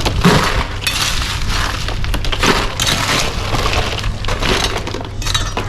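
Ice cubes being scooped and poured into an insulated ice bucket, clattering and crunching in repeated bursts over a steady low hum.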